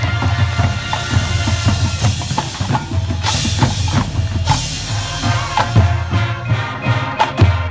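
Marching band playing, with drums and percussion prominent under sustained wind parts. A bright wash of noise comes in about three seconds in and lasts over a second.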